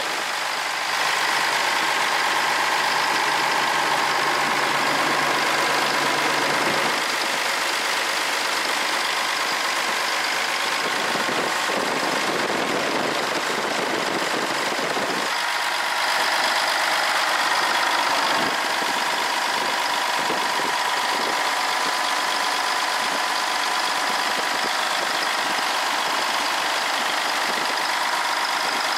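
1977 Mack R Model semi truck's diesel engine idling steadily, heard at its engine bay by the fan and belt drive.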